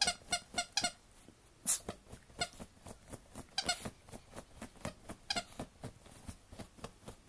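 Dog's squeaky toy squeaking in quick runs of short, shrill squeaks as the dog paws and digs at it through a sheet, with one brief scratching rustle about two seconds in.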